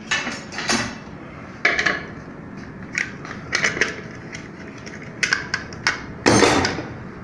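Metal clanks and clicks as a pressure-cooker lid is handled and a tool is worked on its centre fitting to take it apart, a handful of separate knocks, the loudest a short clatter about six seconds in.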